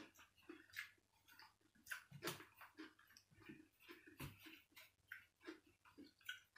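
Faint rustling of a plastic bag and clicking of a woven bamboo sticky-rice basket being handled, with a couple of soft knocks on the table about two and four seconds in.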